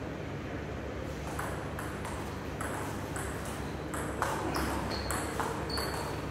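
Table tennis rally: the ball clicking off the bats and the table in quick alternation, about two hits a second, starting about a second and a half in.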